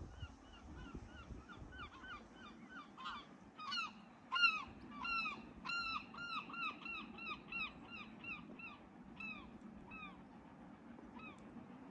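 A gull calling in a long run of repeated harsh, down-curving calls, faint at first, loudest about four seconds in, then tailing off near the end. A faint low rumble of wind lies underneath.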